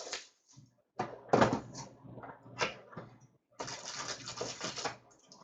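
Packaging of a hockey card box being torn open and crinkled: rustling and tearing in two bursts, the second starting about three and a half seconds in.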